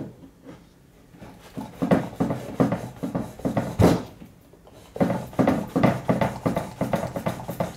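Large steel folding cleaver sawing and chopping down through a thick paperback book: a quiet start, then repeated rasping strokes of the blade tearing through paper, about three a second, with one louder stroke near the middle. The blade is not very sharp.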